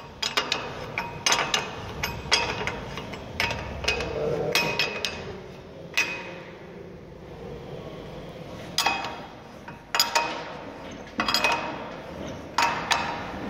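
Steel spanner clinking on the nuts and bolts of a Victaulic grooved pipe coupling as the bolts are tightened: sharp, ringing metallic clinks in quick clusters about once a second, with a quieter gap about halfway through.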